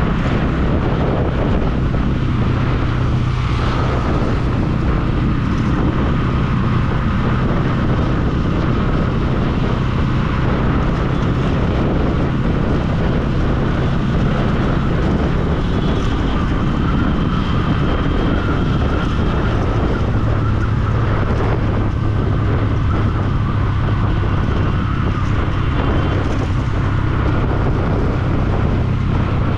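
Motorcycle engine running at a steady cruise, with wind rushing over the action-camera microphone; the engine note shifts slightly lower a little past the middle.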